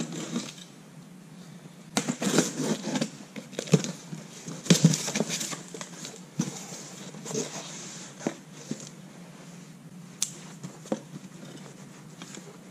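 A cardboard shipping box being opened by hand: flaps pulled back and paper and cardboard rustling in scattered bursts, the busiest stretch a couple of seconds in, with a few sharp clicks and knocks later on.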